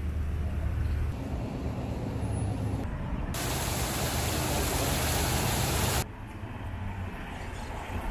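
Outdoor street ambience with road traffic running as a steady low rumble. About three seconds in, a louder hiss cuts in abruptly and stops just as suddenly about three seconds later.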